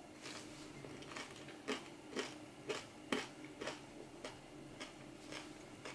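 Crunchy chewing of a tofu nugget breaded in crushed corn flakes: faint crackly crunches, about two a second.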